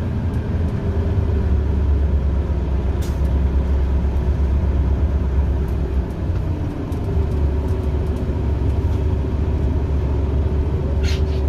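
Cabin sound of a 2001 Orion V transit bus under way: its Detroit Diesel Series 50 EGR engine runs with a steady low drone, which dips briefly about six seconds in and then picks up again. Two brief clicks sound, about three seconds in and near the end.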